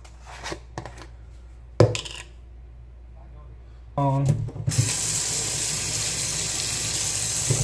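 A single sharp knock, then a kitchen tap turned on, with water running steadily for the last three seconds or so.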